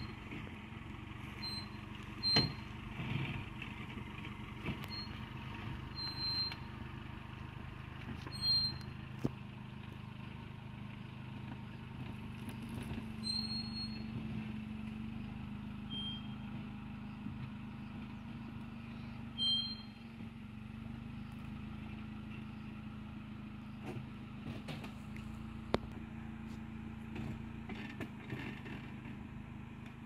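Mitsubishi Pajero TR4 engine running steadily as the SUV crawls slowly up out of a deep eroded rut. A few short, high chirps sound over it now and then.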